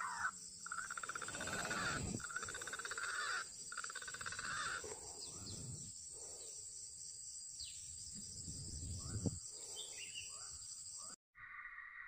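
Outdoor ambience of a steady high-pitched drone and a few short bird calls, with low rumbling handling noises and one sharp loud click about nine seconds in; the sound drops out abruptly near the end.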